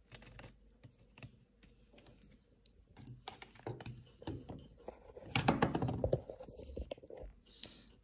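Irregular light clicks and taps of small tools and parts being handled as the SSD is taken off a MacBook logic board.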